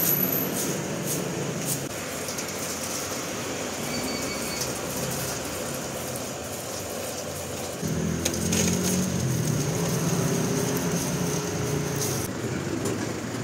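Fried pork pieces tipped from a metal fry basket into a wire-mesh strainer, with light clatter and rustle, over a steady rumbling background hum that gets louder about eight seconds in.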